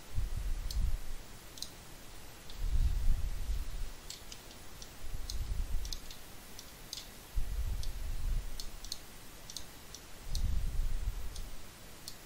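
Computer mouse clicks, short and sharp, scattered at irregular intervals. Low rumbles about a second long swell up every two to three seconds.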